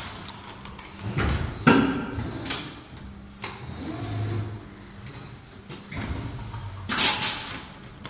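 Plastic injection moulding machines running: a steady low hum with several short, loud hissing bursts at irregular intervals as the machines cycle.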